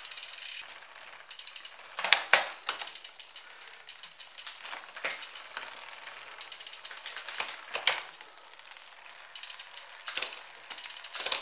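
Bicycle chain running over a spinning 10-speed 11-40 rear cassette and Shimano Tiagra rear derailleur, with a fast, steady ticking of the freehub pawls and a few louder clicks scattered through.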